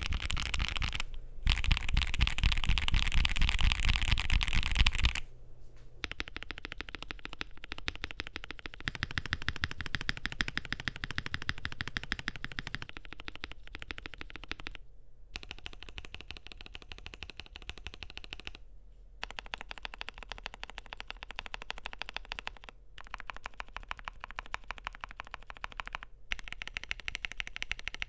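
Continuous fast typing on a Keychron Q6 Max mechanical keyboard with lubed, filmed MOONDROP X G SQUARE Lunalight switches on a polycarbonate plate: a dense run of keystrokes. It is louder for the first five seconds, then quieter, with a few short pauses.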